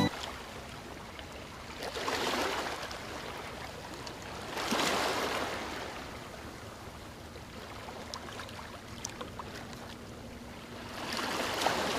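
Rushing, washing water like underwater ambience: a steady noise that swells and fades, loudest about five seconds in and rising again near the end.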